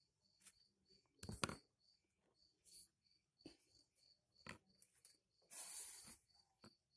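Faint scattered clicks and taps of small hard parts being handled, the loudest about a second and a half in, with a short rustle shortly before the end. A faint high chirp repeats evenly in the background.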